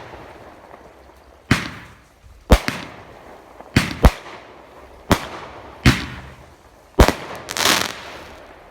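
TNT "Big Show" consumer fireworks cake firing shot after shot: about eight loud bangs spaced a second or less apart, the last trailing into a brief crackle.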